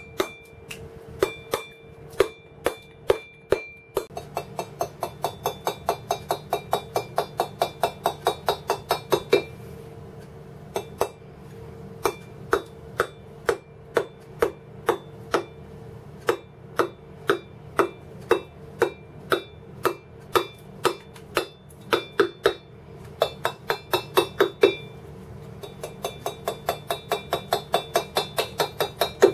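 Wooden mallet striking a cold steel chisel into stone, cutting feather grooves. Runs of quick, even taps at about five a second alternate with slower single blows.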